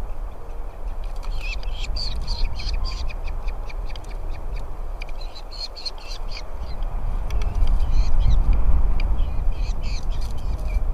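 Falcon chicks in the nest calling with many short, rapid high chirps, typical of nestlings begging for food, over a low steady rumble.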